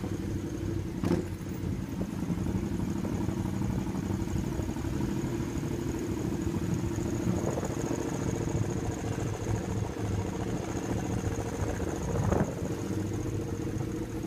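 Triumph Scrambler motorcycle engine running steadily while riding, heard from on the bike. Two brief knocks stand out, one about a second in and one near the end.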